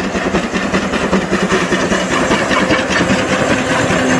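Steam locomotive running with a train, its exhaust chuffing rapidly over a steady low mechanical drone.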